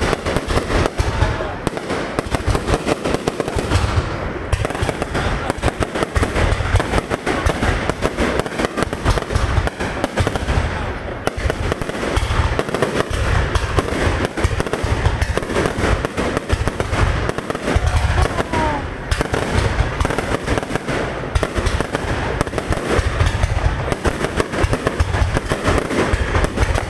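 Aerial fireworks display: a dense, unbroken run of bangs and crackling over deep booms, with a few rising whistles now and then.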